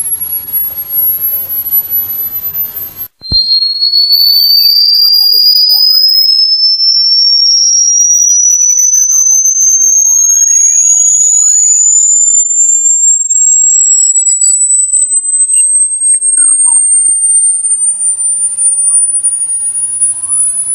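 Electronic rat-repellent sound. A high, steady whistle tone sits over a hiss, cuts out about three seconds in, and gives way to a single pure tone that climbs slowly and steadily in pitch from high to very high.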